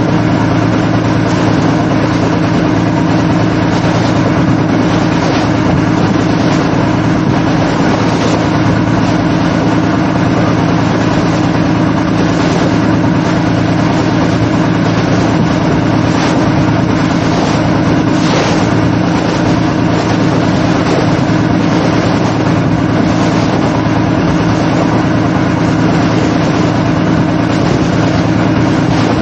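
Small open boat's engine running steadily under way, a constant low hum, mixed with the rushing and splashing of water along the hull.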